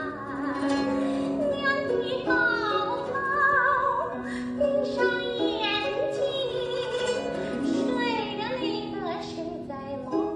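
Background music: a sung melody with vibrato over plucked strings.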